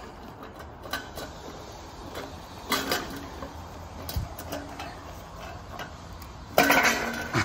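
Scattered light clicks and knocks, with a louder clatter about six and a half seconds in.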